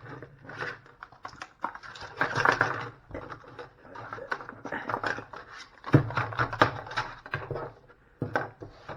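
Flashlight packaging being handled and opened: irregular clicks, taps and rustles.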